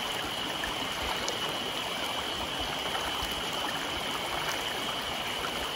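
Shallow mountain stream running over rocks, a steady rushing of water, with a constant high-pitched tone running through it.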